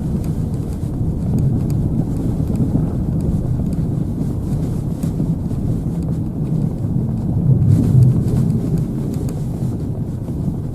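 Car driving, a steady low engine and road rumble heard from inside the cabin, swelling slightly about eight seconds in.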